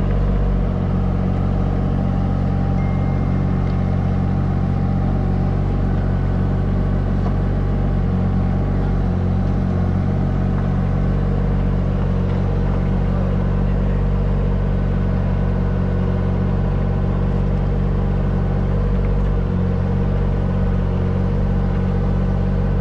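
John Deere 17G mini excavator's diesel engine running steadily, heard from the operator's seat as the machine digs a trench.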